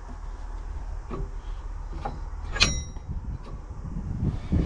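Metal clunks and knocks from the hand-worked hydraulic valve spools and control linkages of a Kaiser X4 spider excavator, being tested for which move freely and which are seized. A few light knocks lead up to one sharp metallic clank with a brief ring a little past halfway.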